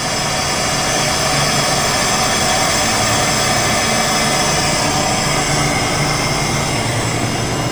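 Machinery running steadily in a machine shop: a low hum and a higher whine over a broad even hiss.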